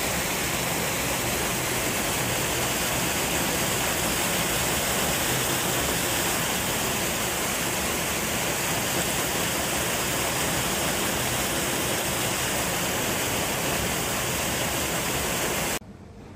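Steady rush of water pouring into a pool and churning it into foam. It cuts off suddenly near the end, leaving a much quieter low background.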